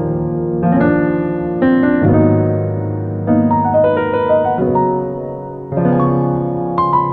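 Background piano music: a gentle melody over chords.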